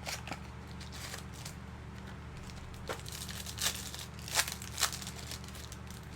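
A trading-card pack wrapper crinkling and tearing as it is opened, in a few sharp rustles over a steady low hum.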